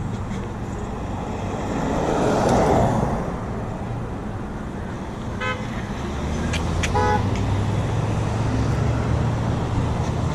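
A car goes by, then a car horn gives a few short toots about five to seven seconds in, over steady road-traffic rumble at an intersection.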